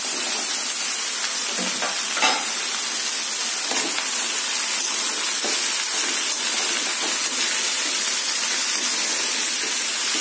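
Diced snake gourd sizzling in hot oil in a metal kadai while being stirred with a perforated metal ladle: a steady frying hiss, broken now and then by short scrapes and clinks of the ladle against the pan, the sharpest about two seconds in.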